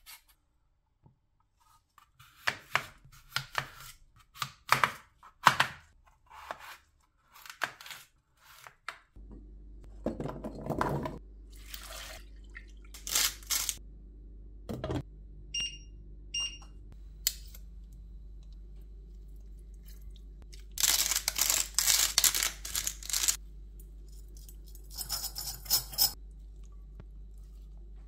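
Hand vegetable peeler scraping a potato skin in quick, irregular strokes. Then a steady low hum from an electric cooktop starts, with two short electronic control beeps a few seconds later. Two louder bursts of rustling noise come near the end.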